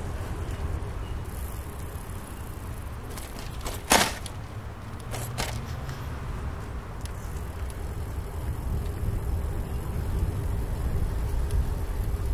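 Steady low rumble of wind and tyre noise from a bicycle ride. A sharp knock comes about four seconds in, followed by two fainter clicks a second or so later.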